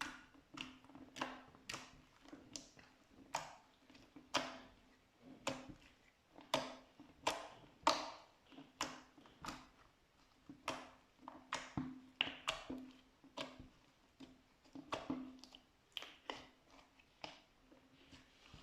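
Slime being squished and pressed by hand, giving a steady string of sharp, sticky clicking pops, roughly one or two a second.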